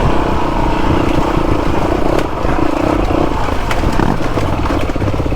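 Motorcycle engine running steadily, then dropping to a slower, evenly pulsing idle about four seconds in.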